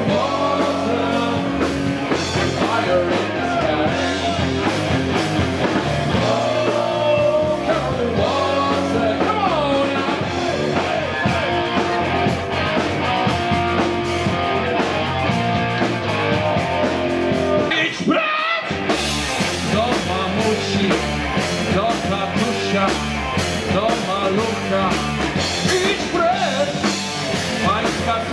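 Live hard rock band playing: electric guitars with a singing voice over them, briefly dropping out about two-thirds of the way through.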